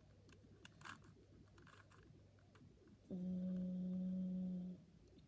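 Faint clicks of a Rubik's cube's layers being twisted by hand. About three seconds in comes a steady, even-pitched hum lasting about a second and a half, the loudest sound.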